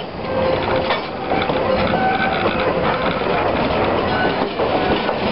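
Passenger cars of a steam-hauled tourist train rolling past at close range: steel wheels running on the rails in a steady, dense rumble, with a few short high squeals of wheel against rail.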